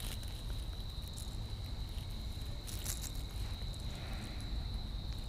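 Steady high-pitched insect chorus, a single unbroken tone, over a low rumble. There is a brief rustle about three seconds in.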